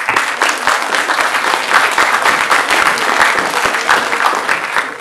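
Audience applauding: many hands clapping together in a dense, steady patter that begins to die down near the end.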